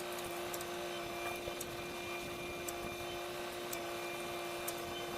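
A machine running steadily with a constant hum, and a light tick about once a second.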